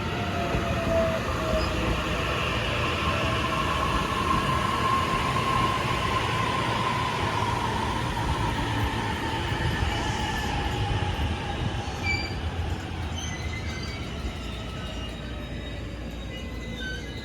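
JR East E233-3000 series electric train pulling into a station and slowing. Its traction motor whine drops steadily in pitch under the rumble of wheels on rail. Short high squeals come in during the last few seconds as the sound eases off.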